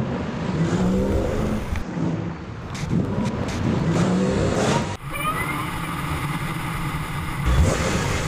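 Car engine revving in two rising and falling sweeps, then cut off abruptly about five seconds in. A steadier engine and road sound takes over, with a short rising whine.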